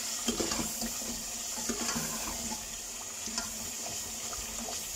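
A metal ladle stirring a wet chicken-and-yogurt masala in an aluminium pot on a gas burner: a steady hiss from the cooking pot and flame, with a few light knocks and scrapes of the ladle against the pot.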